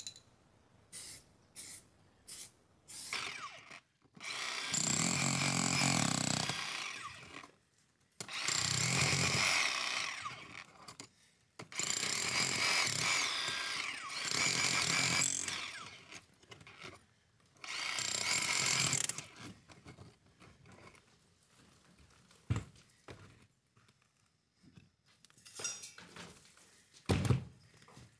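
Bosch cordless rotary hammer drilling into a rubble-stone wall, running in four bursts of two to four seconds each. A few light clicks come before it, and scattered knocks and taps follow it.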